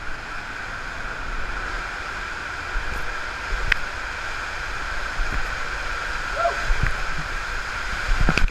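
Water rushing around a raft sliding down the AquaDuck water coaster's tube: a steady hiss that grows louder as the ride speeds up, with a sharp knock a little past the middle.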